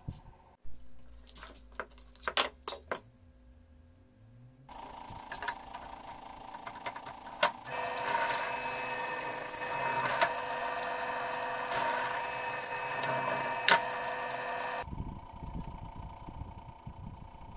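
Benchtop drill press running steadily with a whine as it drills into a cleaver's steel tang, with scattered sharp clicks, for about ten seconds in the middle. Before it come a few sharp clicks and knocks, and after it stops there is a low, quieter rumble.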